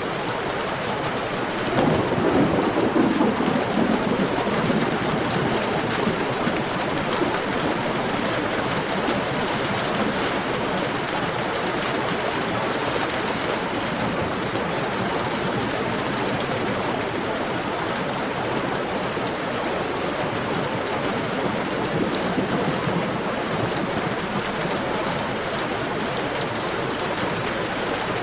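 Heavy rain falling steadily, a dense even patter on surfaces. About two seconds in a louder low rumble swells up and fades over a few seconds.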